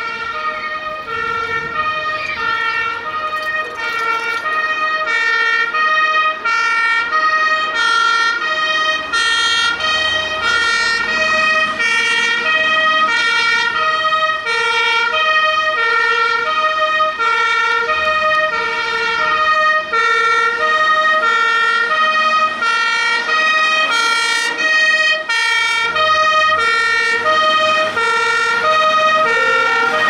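German two-tone fire engine siren (Martinshorn) sounding as fire engines drive past, a high and a low note alternating about every half second. The trucks' engines rumble beneath at times.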